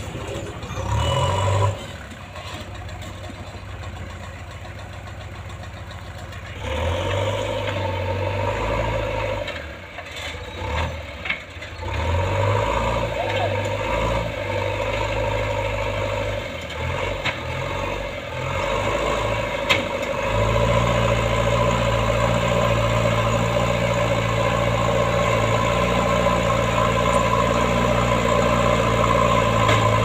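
JCB backhoe loader's diesel engine running, rising and falling in pitch and loudness as the machine works, then running louder and steadier under load for the last third as the front bucket pushes rubble.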